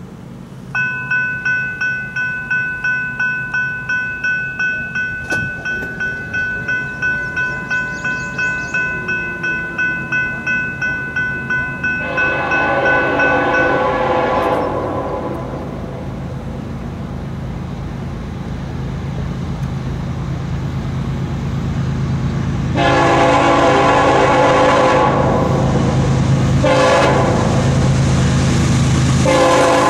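A warning bell starts ringing suddenly about a second in, struck at about two strokes a second, and stops after about fourteen seconds. The approaching Norfolk Southern freight's diesel locomotive horn sounds briefly from about twelve seconds, then in a series of long blasts with short breaks through the second half, the loudest part, over a low rumble of the oncoming train.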